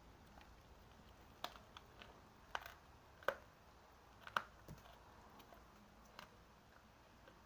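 A handful of short, irregular light clicks and taps over a quiet background, the loudest two a little over three and four seconds in.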